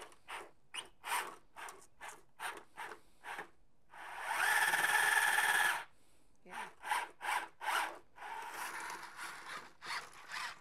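A small combat robot's electric drive motors and gearboxes whining as its wheels spin and scrub on concrete, in short jerky bursts as it darts back and forth. About four seconds in comes one longer, louder burst with a steady whine, the motors driving hard.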